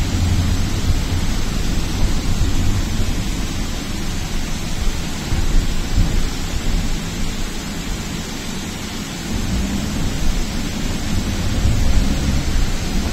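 Road and engine noise inside a moving shuttle van: a steady low rumble with hiss over it, easing a little in the middle and building again near the end.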